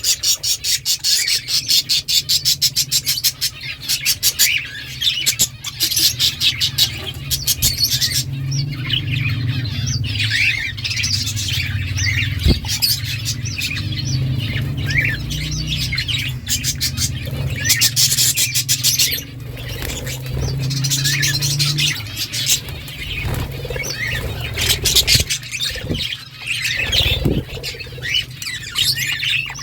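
A flock of budgerigars chattering and chirping, with runs of rapid clicking chatter in the first several seconds and again past the middle, over a low steady hum.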